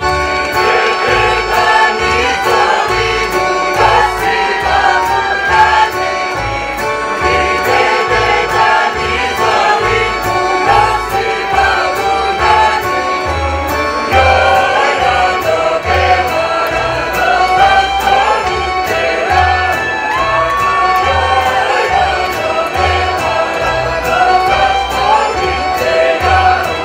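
Serbian folk dance music with a steady bass beat under a bending lead melody, played for dances from the Niš region.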